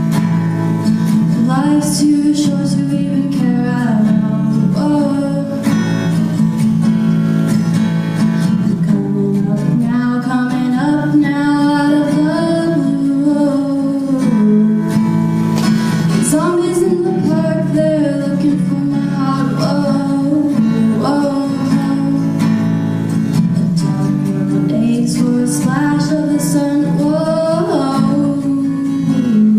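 Music: a woman singing over strummed acoustic guitar.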